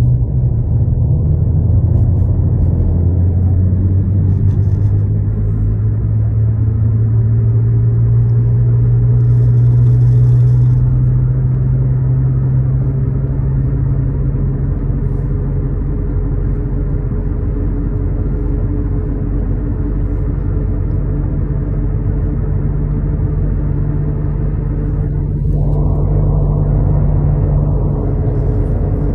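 Car cabin noise while driving: a steady low engine and road rumble, the engine note slowly rising and falling with speed. Near the end the road noise grows fuller.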